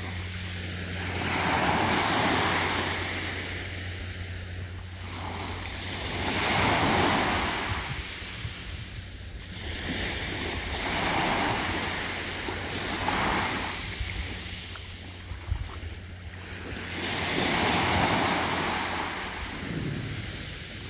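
Small waves washing up a sandy beach and drawing back, the surf swelling and fading about five times, roughly every four to five seconds.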